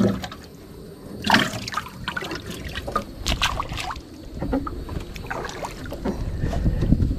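Water trickling and splashing at the water's edge, with irregular light knocks and clatter.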